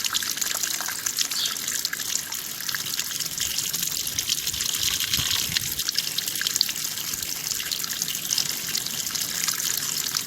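Running water flowing steadily, a continuous rushing and trickling.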